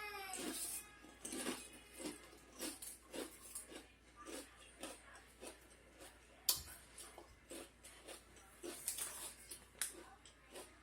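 A person chewing crunchy snack chips close to the microphone: faint, irregular crunches, about one or two a second.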